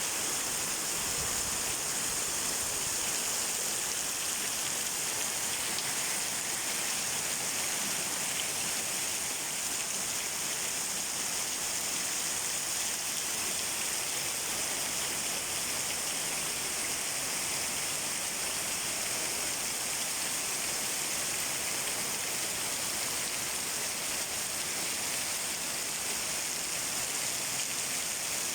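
Heavy downpour of rain: a steady, unbroken hiss of rain falling and running off, with no thunderclap.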